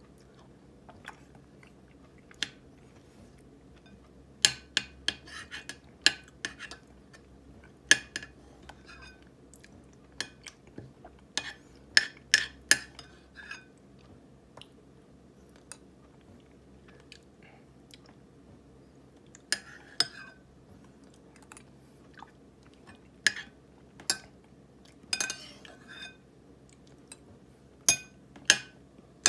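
A metal spoon clinks and scrapes against a ceramic bowl while someone eats soft, thawed frozen ripe persimmon (hongsi) with deliberate wet lip-smacking. Sharp clicks come in clusters several times, with quiet gaps between.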